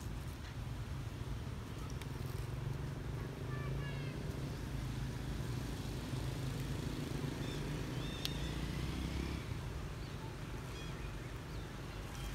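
Steady low rumble of motor traffic on the road, with a few faint high chirps about three seconds in.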